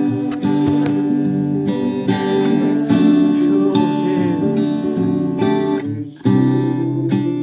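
Acoustic guitar strummed in steady chords, with a brief break about six seconds in before the strumming picks up again.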